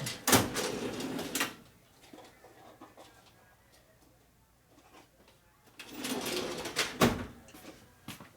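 Parts drawers being slid open and shut while small hardware rattles inside, someone rummaging for a washer. It comes in two bouts of clattering, the second ending with a sharp knock, with a quiet stretch between.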